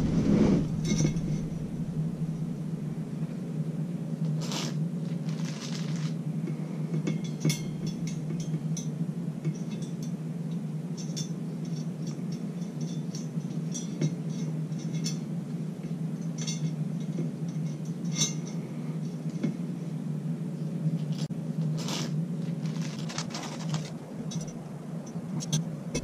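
Small metallic clicks, taps and scrapes of steel spokes being fed through the flange holes of an ebike hub motor and into the spoke holes of a metal bicycle rim, over a steady low hum.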